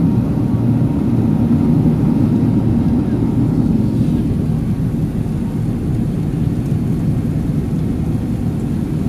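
Steady low drone of an Airbus A380 in flight, engine and airflow noise heard from inside the passenger cabin, easing slightly about four seconds in.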